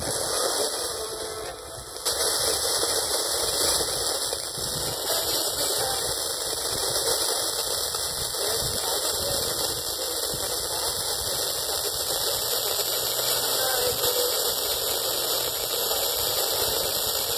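FM radio static from a TEF6686 receiver tuned to a weak signal: a steady, loud rush of hiss with only faint traces of programme audio underneath. The hiss dips briefly, then jumps louder about two seconds in.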